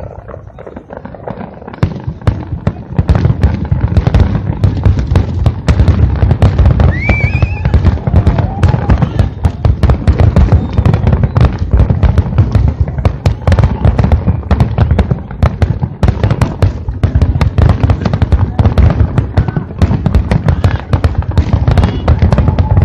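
Fireworks display: a dense, rapid barrage of bangs and crackles, sparser for the first couple of seconds and then continuous. A short rising whistle comes about seven seconds in.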